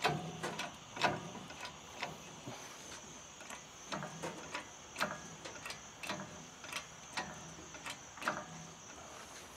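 Irregular metallic clicks and clunks, roughly one a second, some with a short dull thud, from handling the engine hoist and lifting straps holding a truck cab. Insects trill steadily behind.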